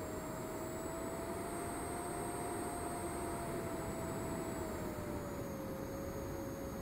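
The 50 mm electric ducted fan of a ZOHD Delta Strike RC jet in flight: a steady high whine over a hiss, its pitch rising slightly and then dropping about five seconds in.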